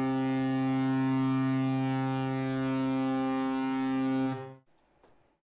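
A low, steady horn sound effect held on one pitch, played as a celebration cue for a pulled autograph card; it cuts off about four and a half seconds in and starts again just after.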